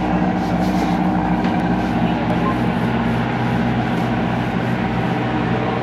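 Passenger riverboat's engine running with a steady, even drone, heard from inside the passenger cabin.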